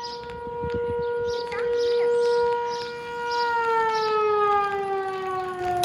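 Outdoor tornado warning siren sounding a steady tone during a routine test. About three seconds in its pitch starts to fall slowly and smoothly as the siren winds down to shut off.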